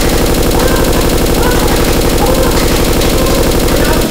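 Machine-gun sound effect: a fast, unbroken stream of automatic gunfire, laid over a Nerf blaster for comic effect.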